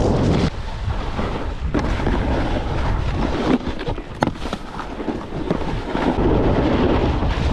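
Wind rushing over the microphone while a snowboard slides over hard, icy snow, a steady rough rumble. There are two sharp knocks a little past the middle.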